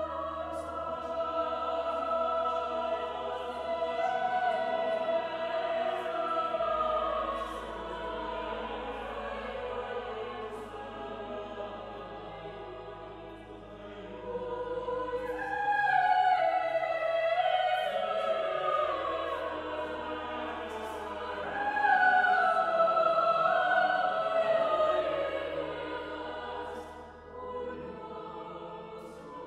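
Choir singing sacred choral music, with long low bass notes held beneath the voices and louder swells about halfway through and again near the end.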